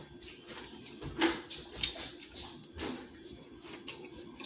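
A person eating seafood boil close to the microphone: chewing, lip smacks and short wet clicks scattered through the few seconds, over a faint steady hum.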